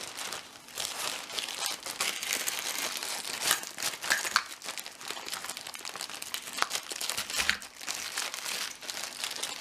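Packaging crinkling and rustling as it is handled and unwrapped by hand, with many small crackles throughout.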